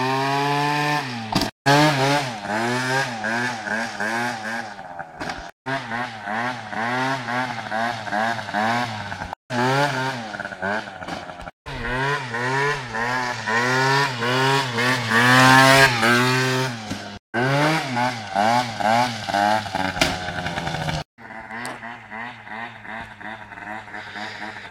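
Aprilia SR scooter engine revving up and down over and over, its pitch rising and falling in quick swings as the throttle is worked to hold a wheelie. It is loudest around the middle and fainter over the last few seconds.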